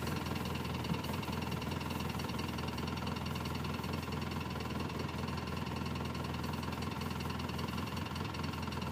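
An engine idling steadily, a constant even hum.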